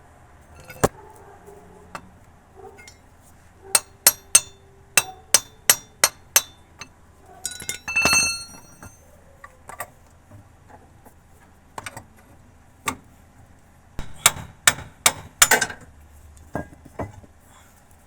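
Hammer blows on steel parts, sharp metallic strikes in irregular runs with pauses between them; one strike about eight seconds in rings on briefly. This is work on fitting a wheel bearing and hub into a steering knuckle.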